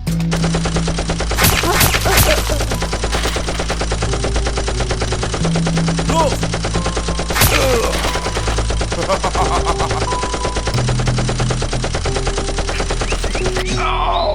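Rapid, continuous machine-gun-style gunfire over background music with a steady bass line.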